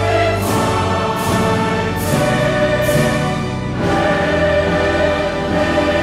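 Background music with sustained chords and a regular beat of struck hits that drops out about two-thirds of the way through, leaving held chords.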